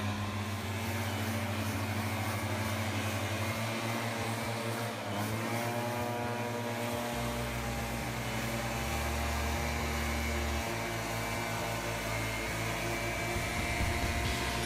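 A motor running steadily at a held pitch, its speed rising briefly about five seconds in.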